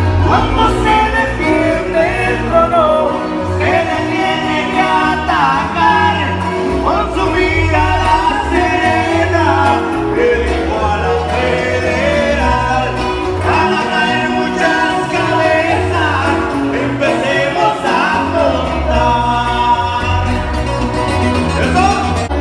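Live band performing a song: a male singer over acoustic guitar and electric bass, the bass notes strong.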